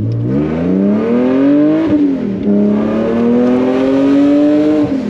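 BMW E46's engine pulling hard under acceleration, heard from inside the cabin. Its pitch climbs for about two seconds, drops at an upshift, climbs again, and drops at another shift near the end. The car has a freshly fitted Tilton racing clutch, whose lighter mass lets the engine rev up quickly.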